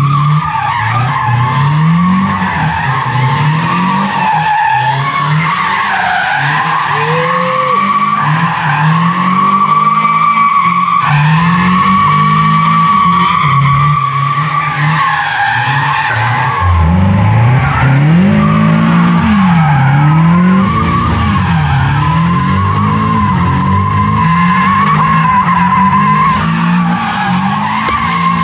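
Mazda Miata 1.8-litre four-cylinder engine, fitted with a muffler, revving up and down over and over while the rear tyres squeal steadily through a burnout and sliding donuts.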